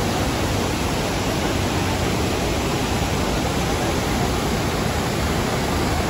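Waterfall rushing: a steady, even wash of falling water.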